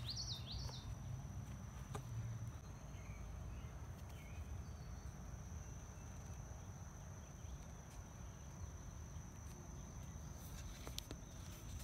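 Insects trilling in one steady, high, unbroken tone, faint against outdoor background noise. A bird gives a short warbling call in the first second.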